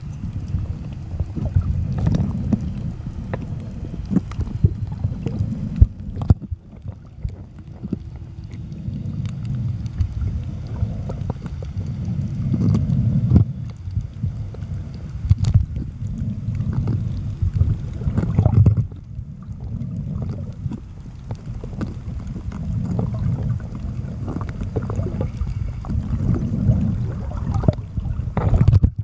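Underwater low rumble of water moving around the camera, broken by irregular sharp clicks and crunches: a parrotfish biting and scraping coral with its beak.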